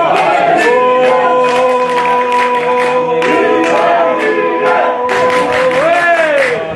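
Football supporters singing and chanting with rhythmic beats. One long note is held for about five seconds and then slides down in pitch near the end.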